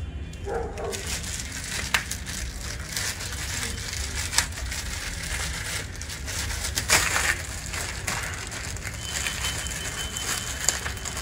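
Plastic wrapping sheet crinkling and rustling as it is handled and pulled off a flat-screen TV, with scattered sharp crackles.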